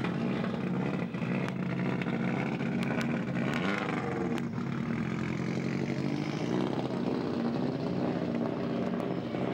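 Subaru Impreza rally car's turbocharged flat-four engine running just after starting, revving up about three and a half seconds in as the car pulls away, with a few sharp cracks over it.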